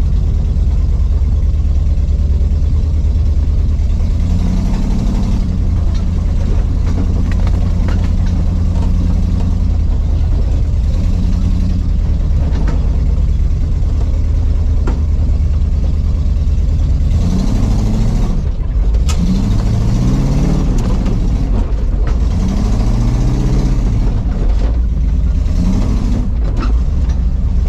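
GMC wrecker truck's engine running as it crawls over rough ground, a steady low rumble that revs up and down several times in the second half.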